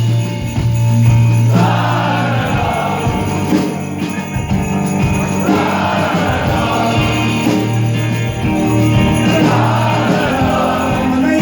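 Audience singing a wordless "la da da" refrain together over an amplified guitar, with jingle bells ringing throughout.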